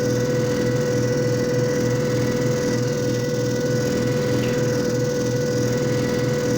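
JFJ Easy Pro disc repair machine running steadily: a constant motor hum with a regular low pulsing from the spinning disc and pad.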